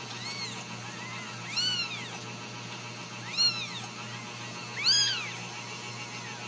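Newborn Ragdoll kittens mewing: about five short, high-pitched mews that each rise and fall in pitch, the three loudest about one and a half seconds apart, over a steady low hum.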